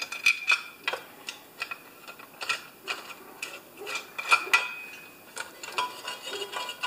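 Light metal clicks, about two or three a second, from a hand tool turning a screw into a chainsaw's housing as the screw threads in.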